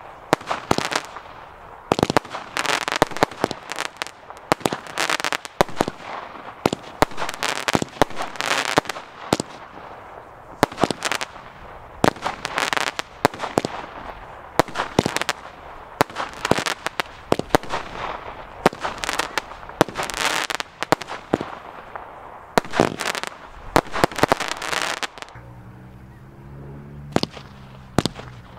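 Garden fireworks firing shot after shot, roughly one a second: sharp bangs with stretches of crackle from the bursts overhead. The shots stop for a few seconds near the end, then start again.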